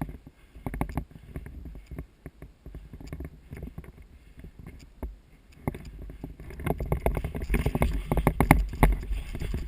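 Crunching and rustling of a person moving on foot through dry brush, with gear jostling. It is sparse at first, then becomes much faster and louder about six seconds in, as if breaking into a run.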